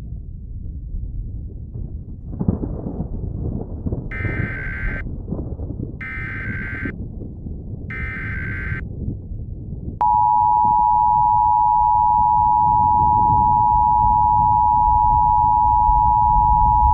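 Emergency Alert System tones: three SAME header data bursts, harsh digital screeches about a second long each, start about four seconds in, spaced a second apart, over a low rumble. About ten seconds in the loud, steady two-tone EAS attention signal begins and holds.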